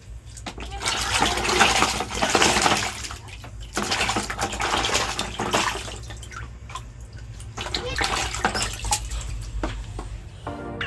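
Water splashing and sloshing in irregular bursts, each a second or two long with quieter gaps between, over a steady low rumble.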